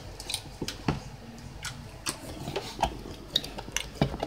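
Clear plastic slime container being twisted and squeezed by hand to get the slime out, giving a string of irregular plastic clicks and crackles.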